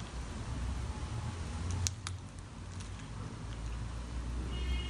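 Slime being squeezed and pressed by hand: soft squishing with scattered small clicks and pops, one sharper pop about two seconds in.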